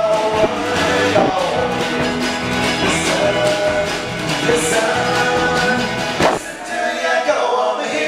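Live acoustic band music: a male lead vocal singing over strummed acoustic guitar, mandolin and drums. A sharp accent hits about six seconds in, after which the low end drops away as the song winds down.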